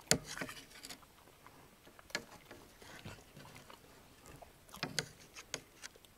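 Handling sounds: scattered sharp knocks and clicks with brief rustling, the loudest right at the start and a small cluster about five seconds in.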